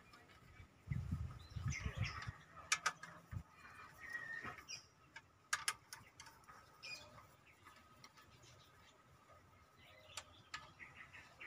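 Hand tools on the fuel injection pipe nuts of a Hino F20C diesel's open cylinder head: a few sharp metallic clicks scattered through, with dull handling thumps in the first couple of seconds. Small birds chirp faintly now and then.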